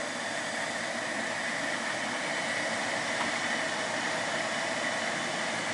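Steady whirring hiss of a Harig Super 618 surface grinder's spindle coasting down after being switched off, over general machine-shop hum.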